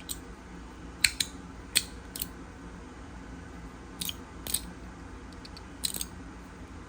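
Magnetic fidget slider being slid back and forth, its magnets snapping it into place with sharp clicks, about nine of them at irregular intervals, some in quick pairs.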